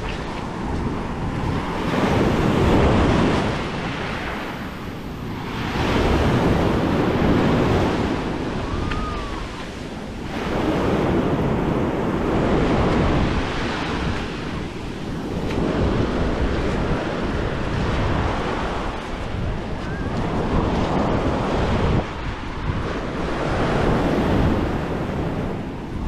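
Small sea waves washing up on the beach, the hiss swelling and falling away every few seconds, with wind on the microphone.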